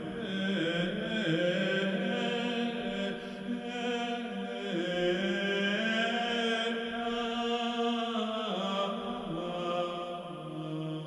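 Soundtrack music: slow chant sung by low men's voices, holding long notes and moving from note to note every second or two.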